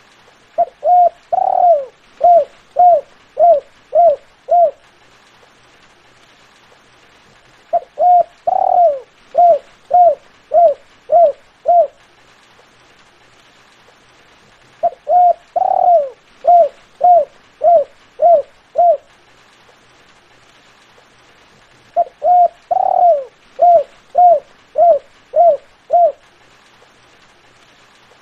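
Spotted dove (terkukur) cooing: four repeated phrases a few seconds apart. Each phrase is a couple of short coos, one longer, louder coo, then a quick string of short coos.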